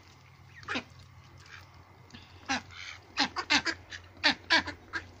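A flock of ducks quacking as they feed: a few short quacks at first, then a quick run of them after about three seconds.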